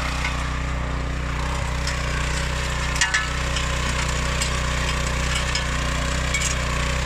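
Engine of an Oleo-Mac MH 150 RK motor hoe running steadily, with a few clicks and knocks about three seconds in and a few more near the end.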